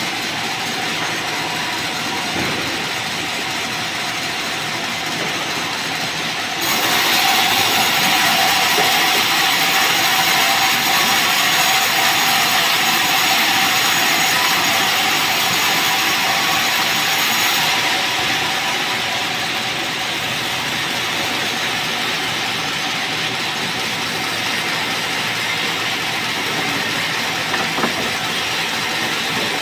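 Sawmill band saw running with a steady hum, its blade ripping a merbau board from about a quarter of the way in until a little past the middle, where the sound turns louder and hissier. After the cut it drops back to the saw running without load, with a couple of light knocks near the end.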